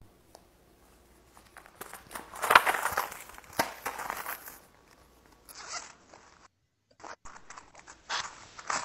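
A stack of paper banknotes being riffled and fanned, papery flicking and rustling that comes and goes, loudest about two and a half seconds in.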